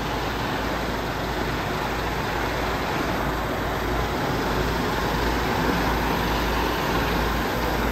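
Heavy truck's diesel engine running steadily.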